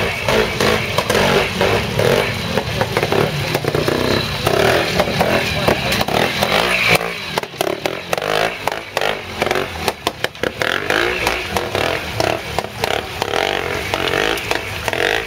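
A classic trials motorcycle's engine running as it is ridden slowly over wet rocks in a stream, with voices talking throughout. In the second half there are many irregular sharp cracks and clatters.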